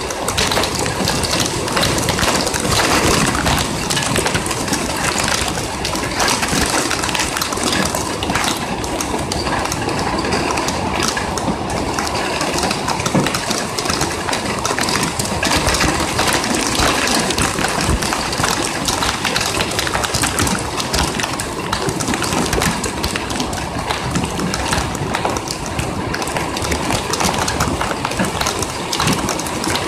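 Rain clattering on a window ledge and on the body of the phone recording it: a dense, even patter of drops with countless fine ticks.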